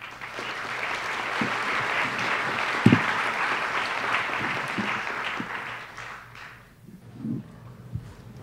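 Audience applauding, dying away after about six seconds, with a single thump about three seconds in.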